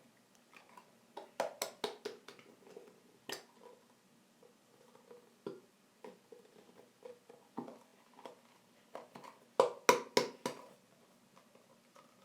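Scattered sharp clicks and taps of small objects being handled, such as a plastic glue bottle, spoon and bowl, while glue is poured out for slime. They come in short clusters, with the loudest run of four or five taps about ten seconds in.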